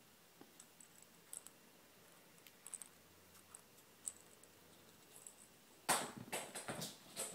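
Faint scattered small clicks and taps, then about six seconds in a sudden flurry of thumps and rustling as a kitten leaps off a couch.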